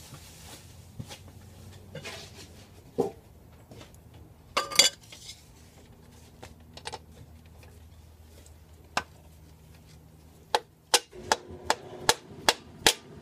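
A chilled steel cylinder sleeve being tapped down into the heated bore of a Toyota 2.2 L diesel block with an orange plastic mallet: a run of about eight sharp strikes, a few per second, in the last three seconds. Before that come a few scattered clinks as the sleeve is handled and set in place.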